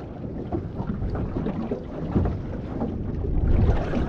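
Wind buffeting the microphone over water lapping against a small boat's hull, with small knocks and splashes scattered through it.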